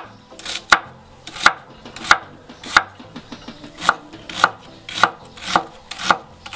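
Cleaver chopping a peeled onion into dice on a wooden cutting board: a steady series of sharp knocks, about two a second, with a short pause about three seconds in.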